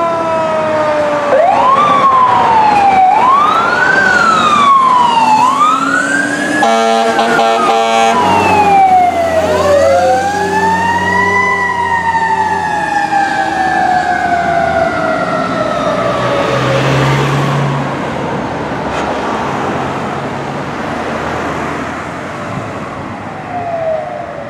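Fire engine's siren sweeping quickly up and down several times, a horn blast about seven seconds in, then the siren winding up once and slowly winding down over several seconds. The truck's engine runs low underneath, and the siren fades as the engine drives away.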